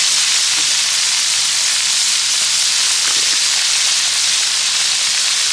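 Hot oil sizzling steadily in a large wok as a whole fish deep-fries, an even high hiss of bubbling fat.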